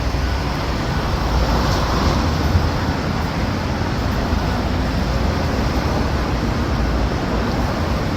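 Steady road traffic noise on a city street: a continuous low rumble of passing vehicles.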